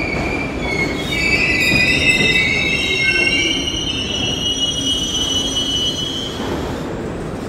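New York City Subway R62 train pulling into the station, a steady rumble under several high-pitched squeals as it slows. The squeal fades out about six seconds in as the train comes to a stop.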